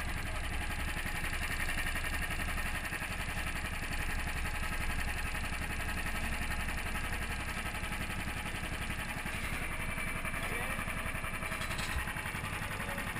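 Racing kart engine idling, running steadily with a fast even pulse. One short knock near the end.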